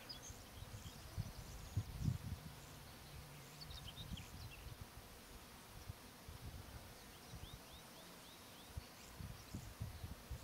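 Outdoor grassland ambience: a low, uneven rumble with faint high chirps from small animals, including a quick run of about six short falling chirps a little past the middle.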